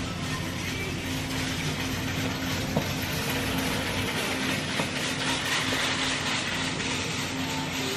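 Steady big-store background noise: a low hum under an even hiss, with a few faint clicks.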